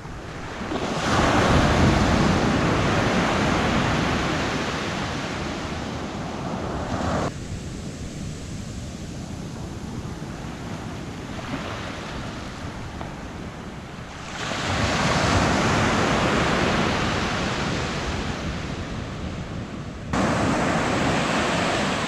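Small surf waves breaking and washing up a sandy beach, a rushing noise that swells and slowly fades, three times, the last surge starting suddenly near the end.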